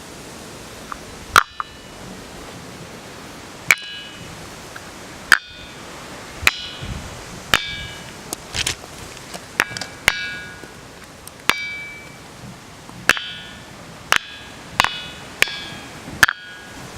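A large gabbro boulder struck with a small hand-held stone, about a dozen irregularly spaced blows. Most give a clear metallic ring of several high tones that fades within about a second; a few land as short clacks with little ring.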